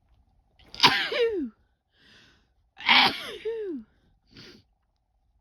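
A woman sneezing twice, about two seconds apart. Each sneeze is a sudden loud burst that trails off in a voiced, falling 'choo'.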